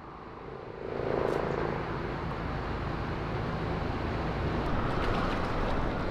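Steady rushing of the creek's flowing water, fading up over the first second and then holding level.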